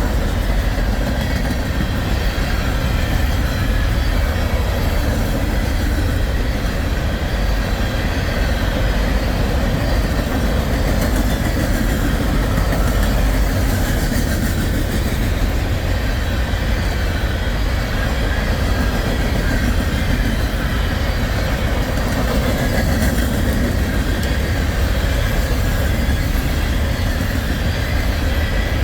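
Empty rock-train freight cars rolling past at close range, a steady loud rumble and rattle of steel wheels on rail.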